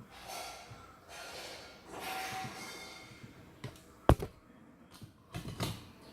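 Hand work on a mechanical keyboard while a plate-mounted key switch is being pried out: soft scraping and rubbing, then one sharp loud click about four seconds in and a short cluster of knocks near the end.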